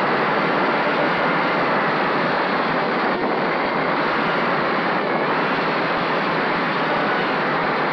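Steady rush of wind and propeller wash from a racing mini quadcopter with Emax RS2205 motors in fast flight, heard on its onboard camera microphone.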